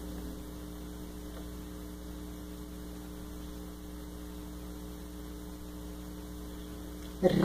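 Steady electrical mains hum: a low, even buzz of a few fixed tones that does not change.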